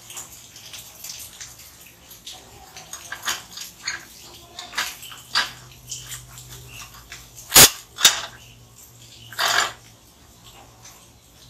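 Workshop clatter of steel parts being handled: scattered light clicks and taps, a sharp loud metallic knock past the middle followed by a second one, then a brief hissing burst.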